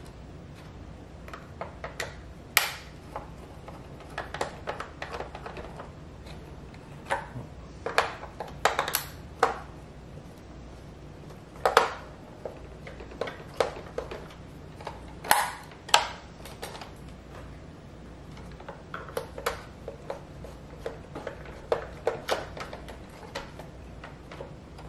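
Irregular sharp clicks, taps and knocks of a screwdriver and hard plastic parts as a Roomba 614 robot vacuum is taken apart, screws being backed out of its plastic underside and pieces handled.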